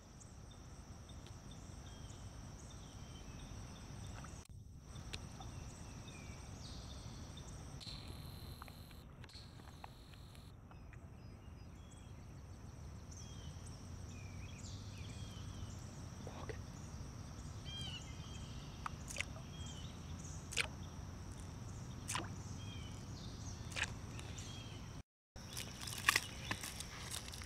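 Outdoor ambience of steady high-pitched insect chirring, with scattered short bird chirps and a few sharp clicks. The sound drops out completely twice, briefly.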